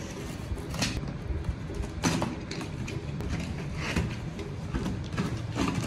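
Box cutter slicing along the packing tape of a cardboard shipping box, with several short scraping rasps and the cardboard being handled.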